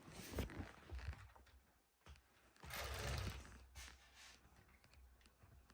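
Faint handling noise of a plastic Lego excavator's boom and arm being moved by hand: soft clicks and rustles from its joints, with a low rumble of hands on the model about halfway through.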